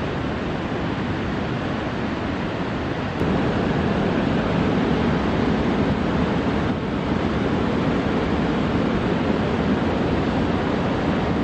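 Heavy ocean surf churning after a storm: a steady rush of breaking waves with wind on the microphone. The sound steps up in loudness about three seconds in.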